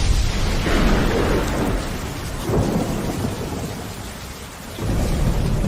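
Thunderstorm: rain falling steadily under rolls of thunder, the low rumble swelling about a second in, again at about two and a half seconds, and once more near the end.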